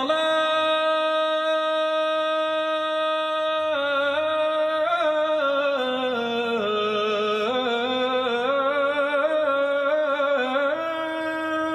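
A solo unaccompanied voice sustaining one long sung vowel in the drawn-out style of a Syrian cloth seller's street cry: held steady at first, then winding down and back up in ornamented runs from a few seconds in, and settling on a held note again that stops near the end.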